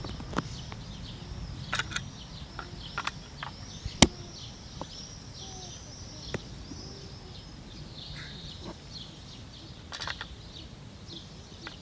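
A continuous chorus of many birds chirping, with scattered sharp clicks, the loudest about four seconds in.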